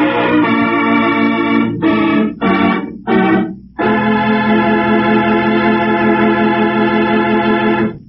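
Organ music closing out the show: sustained chords, then three short chord stabs about two to three seconds in, then one long held final chord that stops right at the end.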